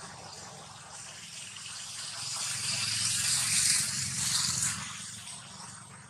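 Insects buzzing, a hissing chorus that swells to its loudest a little past the middle and then fades away.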